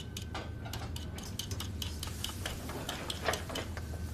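Quick, irregular scraping strokes of a hand vegetable peeler on a raw potato, several a second, over a low steady hum. A single knock comes about three seconds in.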